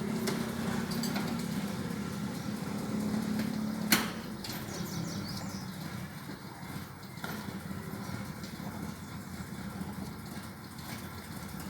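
Chevrolet Opala Diplomata's four-cylinder engine idling with a steady low rumble. There is one sharp click about four seconds in.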